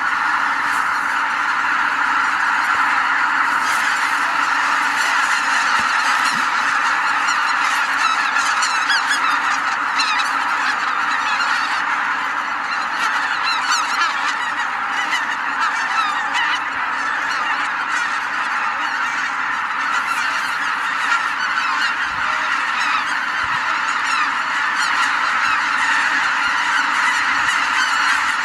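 A huge flock of greater white-fronted geese honking all at once as they lift off from their lake roost at dawn: a dense, continuous chorus of overlapping calls.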